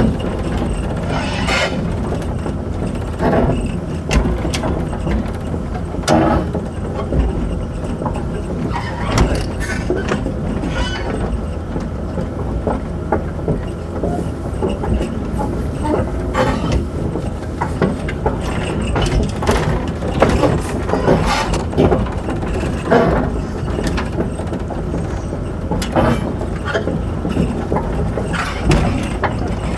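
Komatsu crawler excavator travelling on its steel tracks: the diesel engine runs steadily under irregular clanks and knocks from the track chains.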